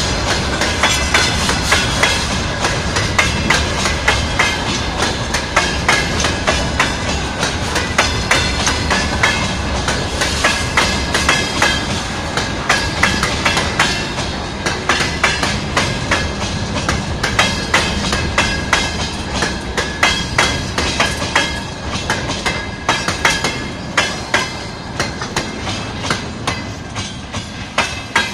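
Freight train wagons rolling past on jointed track: a steady rumble of steel wheels with rapid clickety-clack as the bogies cross rail joints, and a high ringing from the wheels over it. The sound eases a little toward the end.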